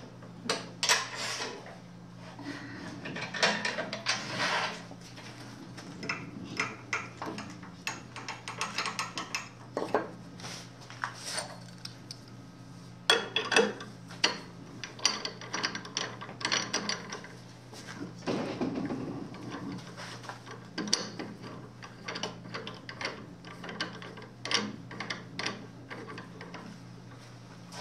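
Irregular metal clinks, clicks and knocks from handling a wood lathe's fittings: the drive centre taken out of the headstock and the workpiece's tenon clamped in the chuck, its jaws tightened with a chuck key. A steady low hum runs underneath.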